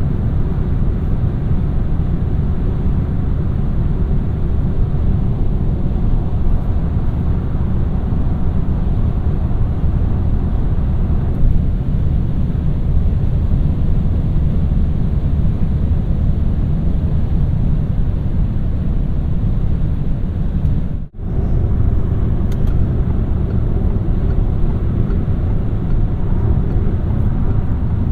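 Interior driving noise of a 2017 Peugeot 3008 with its 1.2-litre turbocharged three-cylinder PureTech petrol engine: a steady low rumble of engine and tyres on the road. The sound cuts out for a split second about three quarters of the way through.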